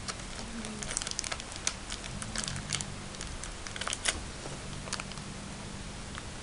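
A thin plastic piping bag crinkling as it is squeezed and kneaded by hand: a run of irregular small crackles and clicks that thin out after about four seconds.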